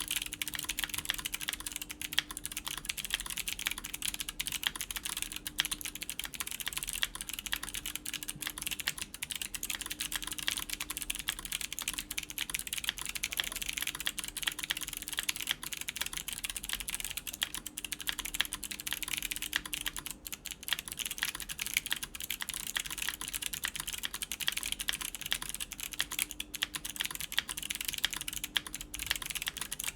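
Continuous typing on a mechanical keyboard with clicky Kailh Box White v2 switches in a full aluminium plate, capped with GMK Space Cadet keycaps: a dense, unbroken run of sharp, crisp key clicks.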